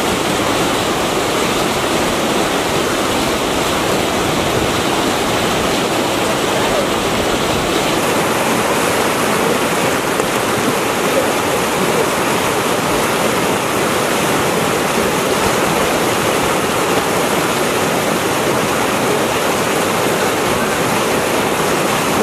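River rapids: whitewater pouring over and around boulders in a steady, unbroken rush.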